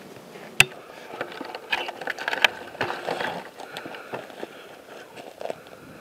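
Footsteps and gear clatter on a dry, gravelly dirt trail: irregular crunches, clicks and rustles, with one sharp click about half a second in and the busiest stretch between about two and three and a half seconds.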